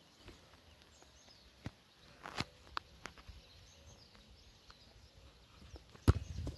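Quiet open-air background with a few faint taps, then near the end one sharp thud of a football being kicked.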